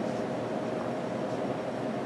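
Steady room hum and hiss, with a faint steady tone and no distinct events.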